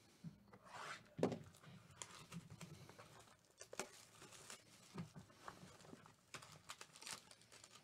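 Cellophane shrink wrap on a cardboard trading-card box crinkling and tearing as it is stripped off, then the box lid opening near the end. The sound is quiet: a string of soft crinkles and small clicks.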